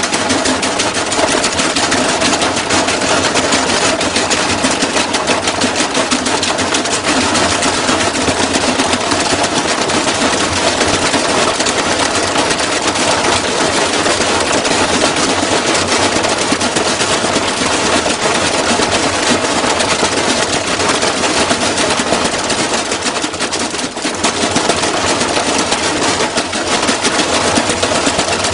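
Washing machine running hard, with a loud, rapid, continuous rattling and banging from inside it, dipping briefly near the end.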